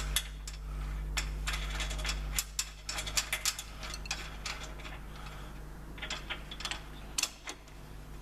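Irregular metallic clicks and clinks, ratchet-like, as a bolt with a washer is wound in by hand tool on a tyre changer's assist arm, pulling the locking pin through. A steady low hum runs underneath.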